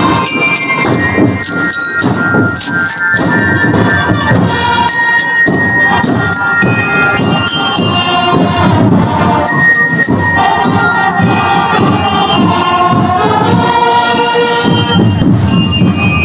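Military marching band playing on the march: bell lyres ring out the melody in bright, short notes over brass and drums.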